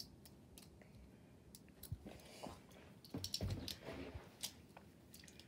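Faint, scattered small plastic clicks of Beyblade parts being handled and fitted together as a driver tip is swapped.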